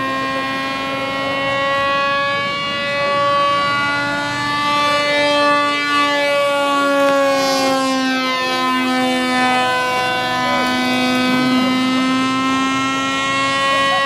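Motor and propeller of a small powered paper airplane in flight: a steady buzzing drone whose pitch slides slowly down and back up as the plane circles past.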